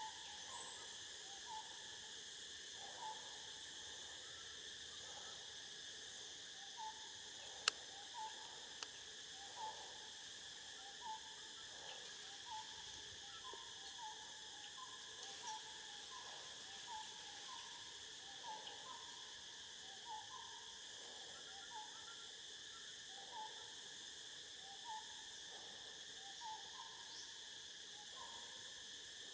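Forest ambience: a steady high insect drone, with short rising hoot-like calls repeated about once a second from an animal not seen. A single sharp click sounds about eight seconds in.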